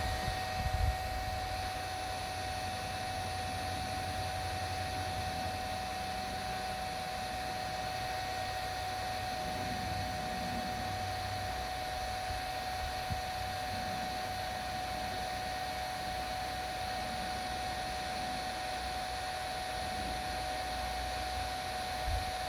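Chad Valley battery-powered bubble machine running after its repair: its small fan motor whirs steadily with one constant high hum. A few light knocks near the start.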